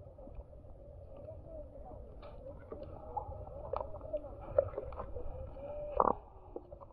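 Muffled underwater sound heard through a camera's waterproof housing: a low water rumble with scattered clicks and crackles and a faint wavering tone, and a louder knock about six seconds in.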